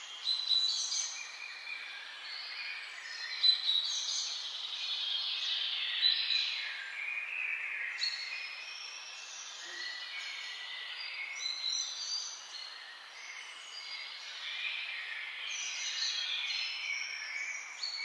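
A chorus of many birds chirping and twittering at once, short calls overlapping without a break over a faint steady hiss, with a few louder calls standing out in the first half.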